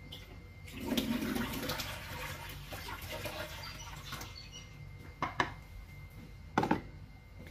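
Water being poured out into a kitchen sink: a rushing splash that starts about a second in and tails off after a few seconds, followed by two sharp knocks.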